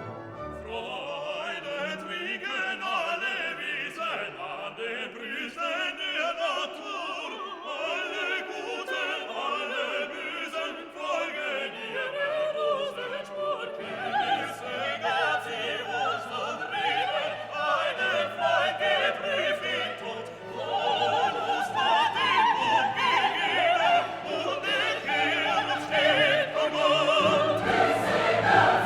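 Background classical music: operatic singing with vibrato over an orchestra, swelling louder near the end.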